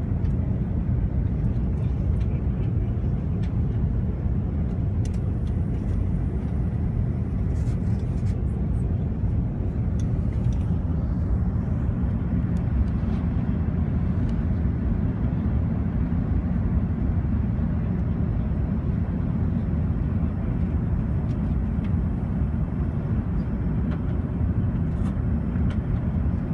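Steady low rumble of cabin noise inside an Airbus A380, from its engines and the air rushing past the fuselage, with a few faint clicks.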